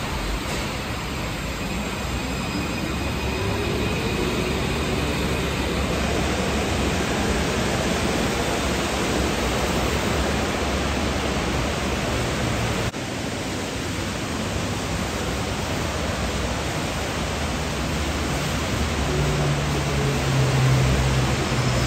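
Steady hiss of falling rain, with the faint whine of a Santiago Metro AS-02 train's traction motors rising in pitch a few seconds in. Near the end a low hum from a train grows louder.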